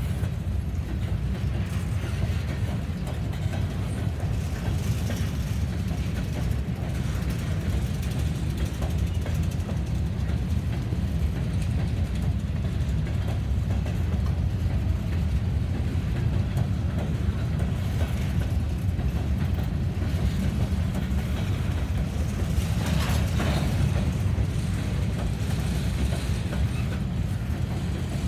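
Freight train's covered hopper cars rolling past on the main line: a steady low rumble of steel wheels on rail with faint clicking, briefly louder about 23 seconds in.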